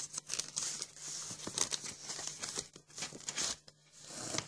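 Packaging crinkling and rustling in irregular bursts as spiral-bound workbooks are handled and lifted out of a cardboard box.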